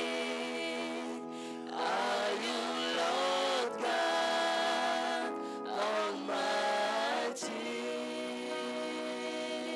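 A man singing a gospel hymn into a microphone, accompanied by sustained chords on a Yamaha electronic keyboard.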